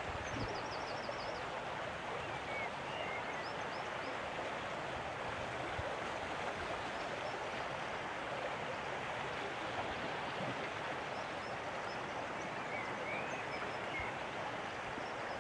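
Steady rush of running water, with a few faint bird chirps near the start and again near the end.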